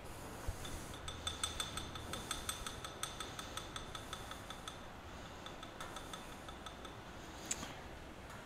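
Light metallic ticks and clinks from setting up and zeroing a dial indicator against the end mill. The ticks come several a second for about two seconds, then thin out, with one sharper click near the end.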